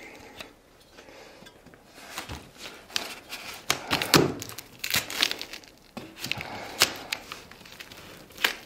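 Packing tape on a cardboard box being slit with a long blade: irregular rasping, tearing and crinkling of tape and cardboard, with a few sharp knocks. It is quiet for the first two seconds or so, then the cutting sounds come thicker.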